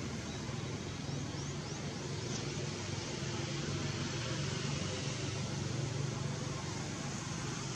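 Steady outdoor background noise: an even hiss over a low hum, like distant traffic. A few faint, short high chirps about a second in.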